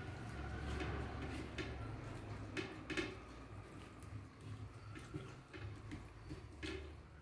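Eating by hand: fingers mixing rice on a plate with a few faint clicks and soft chewing.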